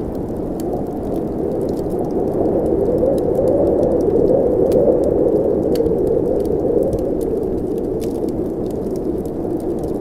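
Snowstorm wind rushing steadily, swelling into a gust through the middle and easing off again, with scattered sharp pops of a crackling wood fire.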